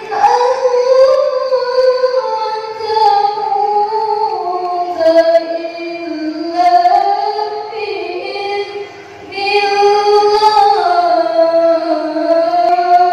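A single high voice singing a slow, ornamented chant, holding long notes that bend slowly up and down, with short pauses for breath.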